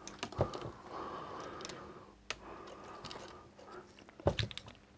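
Handling noise from hook-up wires being held and moved: a couple of sharp clicks, one about half a second in and one near the end, with soft rustling between.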